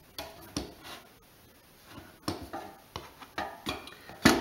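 Scattered light knocks and scrapes of a steel bench scraper and a metal Pullman loaf pan against a wooden board, the loudest clatter near the end as the pan is shifted.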